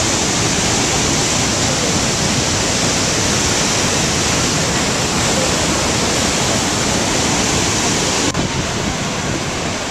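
Loud, steady rushing of Niagara Falls' water crashing into the river below, with no pause or change. About eight seconds in, the sound cuts to a slightly quieter, duller rush.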